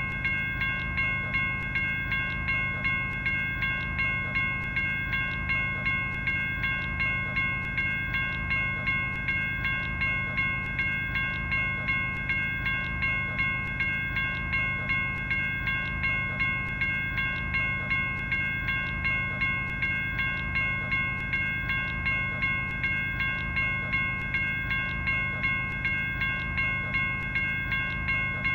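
General Signals Type 1 electronic railroad crossing bell ringing continuously: a steady run of bell-like dings, about three every two seconds, each striking sharply and fading before the next.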